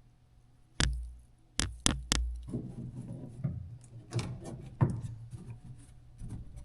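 Several sharp knocks, each with a heavy thump under it, start about a second in, followed by a run of lighter clattering and rustling: hard objects being handled and set down in a small room.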